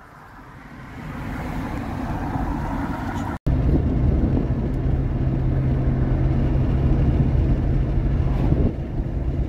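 Car driving: a steady drone of engine and road noise with a low hum, coming in abruptly about three and a half seconds in after a softer rush of noise that swells up at the start.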